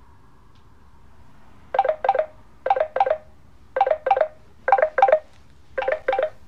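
Telephone ringing with an electronic ring: five double trills, about one pair a second, starting about two seconds in.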